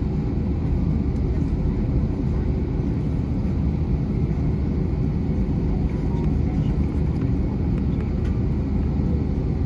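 Steady low rumble inside the cabin of an Airbus A321 taxiing at low speed, its engines at idle thrust.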